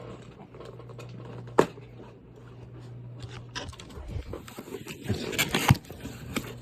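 Handling noise from a package being forced open: a sharp knock, then a busy run of taps, clicks and scraping with two loud knocks near the end. A steady low hum underneath stops about halfway through.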